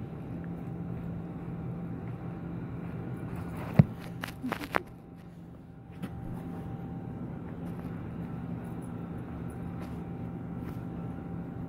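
A puppy mouthing and tugging a plush duck toy on carpet: one sharp knock about four seconds in, then a short run of clicks, over a steady low hum.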